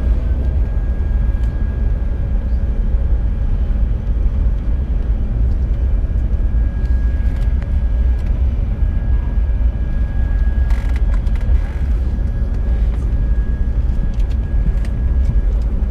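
Steady low rumble inside an ATR72-600 turboprop's cabin, with a faint steady whine above it that cuts out near the end: the other engine running while the propeller of the near engine is still stopped. A few clicks and knocks about eleven seconds in.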